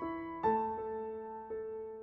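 Soft background piano music: a note struck about half a second in, then quieter notes ringing out and fading.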